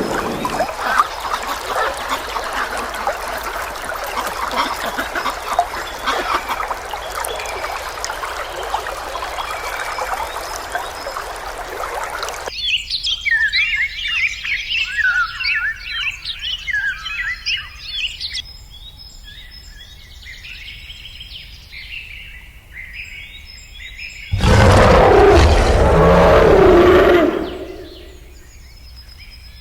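A steady rushing noise for about twelve seconds, then many small birds chirping in quick, high calls. Near the end comes a loud, rough sound lasting about three seconds.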